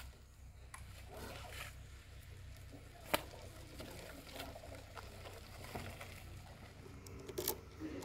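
Faint handling noises from a TVS Radeon motorcycle as a rider gets on it: one sharp click about three seconds in, then a few sharp metallic clicks near the end as the ignition key goes into the switch.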